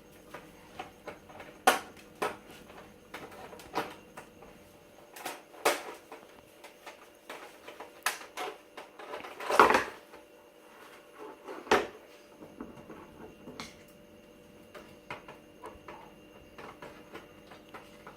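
Cardboard and plastic toy packaging being handled and worked open by hand: an irregular run of small clicks, taps and crinkles, with a louder crackle about halfway through and another a couple of seconds later.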